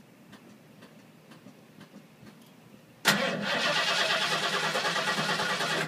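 1986 Ford F-250's engine cranking on the starter, starting suddenly about three seconds in and cutting off abruptly after about three seconds without catching: a hard start after the truck has sat too long.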